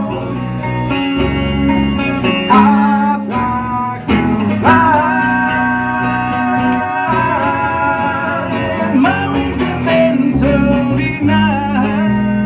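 Two acoustic guitars strummed while a man sings, holding one long note in the middle.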